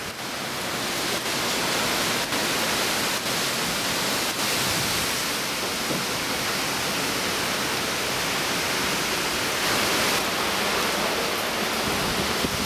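Hurricane Sandy's heavy rain and wind: a steady, even rushing hiss.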